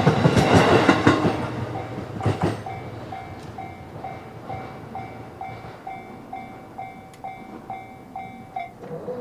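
A JR Itsukaichi Line train passing over a level crossing, wheels clattering, fading out within the first two seconds. Then the crossing's electronic warning bell goes on ringing at a little over two strikes a second and stops shortly before the end.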